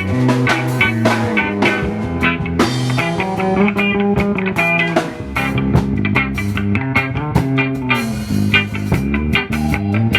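Live band music with guitar: sustained chords and quick picked notes over a bass line.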